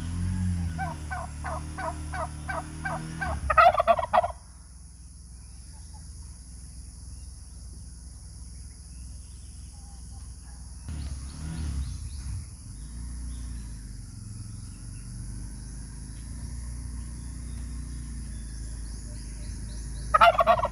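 Male turkey gobbling: a fast rattling gobble in the first four seconds that grows loudest just before it stops, then a long quieter stretch, and another gobble starting right at the end. A steady high hiss runs underneath.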